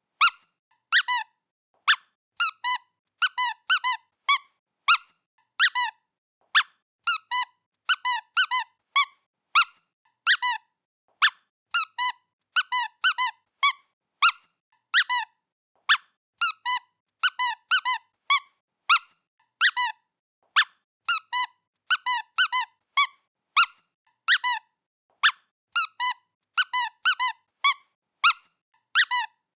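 Squeaky cat toy squeaked over and over as it is played with: short, high squeaks in quick pairs and triplets, a few each second, with brief gaps of silence between.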